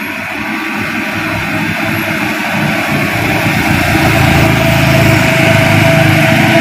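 Mitsubishi Fuso HD truck's diesel engine pulling up a hill, growing steadily louder as the truck approaches, with a steady whine coming in near the end.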